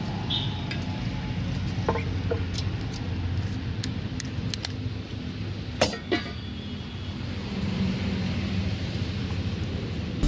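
Street ambience with a steady low rumble of road traffic, dotted with small clicks and clinks of utensils and bowls; two sharper taps come about six seconds in.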